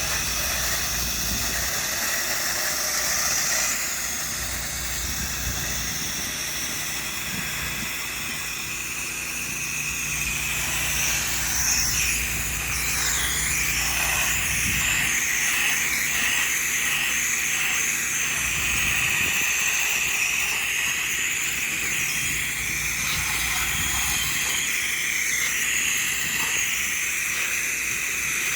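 Soft-wash spraying rig running: a steady spray hiss from the nozzle over the constant low hum of the pump.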